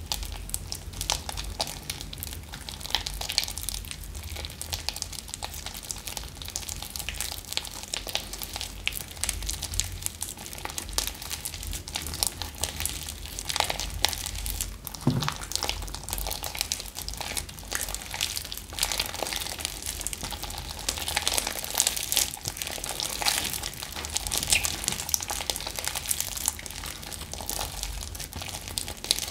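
Thick slime mixed with clay being kneaded, folded and stretched by hand: a continuous run of small sticky crackles and squelches.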